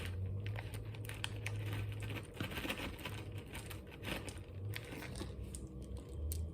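Plastic candy bag crinkling and crackling as it is handled, a scatter of small irregular crackles over a faint low steady hum.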